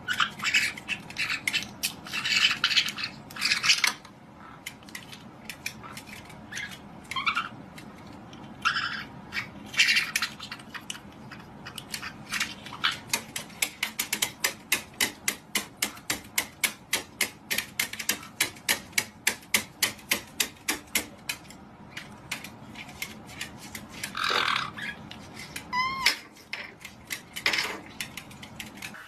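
Two white-bellied caiques calling in harsh squawks, with a short whistle near the end. Through the middle comes a long run of quick, sharp taps on their plastic perch stand, about four a second.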